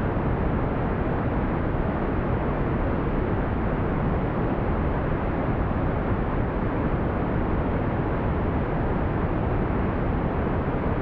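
Smooth brown noise: a steady, even low rumbling hiss that is strongest in the bass and rolls off above about 2 kHz, with no changes.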